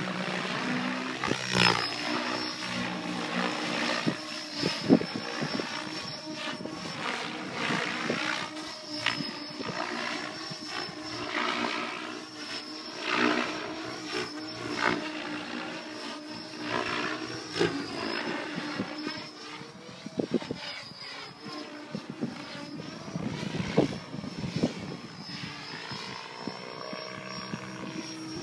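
Electric Mikado Logo XXtreme 800 RC helicopter in flight, its rotor blades humming with a steady high motor whine over them. The sound swells and fades as the helicopter moves about the sky.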